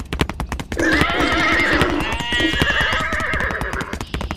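Horse whinnying: one long quavering neigh of about three seconds. It is preceded by rapid, even clicking in the first second.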